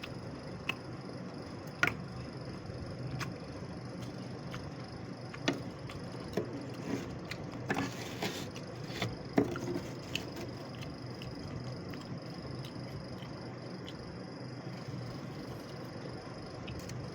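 Scattered crisp clicks and crunches of freezer frost being scraped and crunched, a few near the start and most of them between about five and ten seconds in, with a short scraping rush near the middle. Under them runs a steady low hum.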